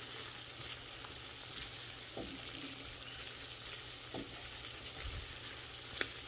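Diced chicken breast and potatoes in sauce sizzling steadily in a frying pan while a silicone spatula stirs and scrapes through them, with a sharp click about six seconds in.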